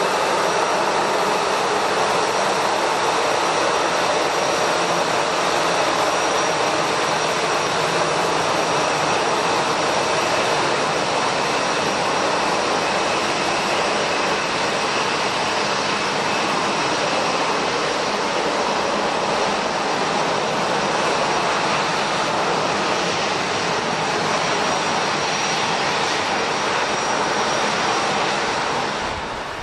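Jet airliner's turbofan engines running at close range: a loud, steady rush with a thin high whine over it, easing slightly near the end.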